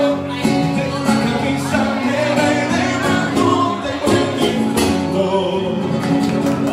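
A male singer singing into a microphone, accompanied by an acoustic guitar that is strummed and picked. Live acoustic duo music.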